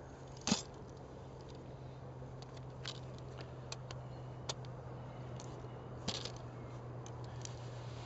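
Sharp metal clicks and clanks of a folding aluminium turf drag's frame being opened out and locked into place, the loudest about half a second in, with lighter scattered clicks after it. A steady low hum runs underneath.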